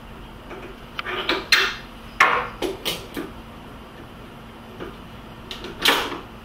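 Handling clicks and knocks of a telescope star diagonal being pushed into the back of the focuser and secured: a run of sharp knocks between about one and three seconds in, and two more near the end, the last one loud.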